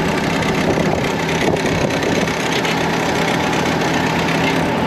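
Sewer jetter truck's engine idling steadily, a constant even hum.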